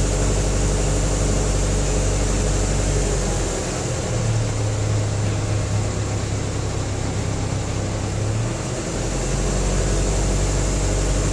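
A truck engine running steadily while it powers the lift of a well pump. Its note rises about three and a half seconds in and drops back just before the end.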